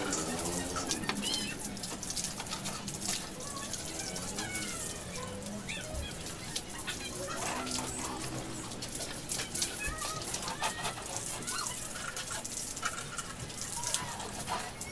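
Water from a garden hose spraying and splashing onto a motorcycle's bodywork, a steady hiss. Chickens and other birds call now and then in the background.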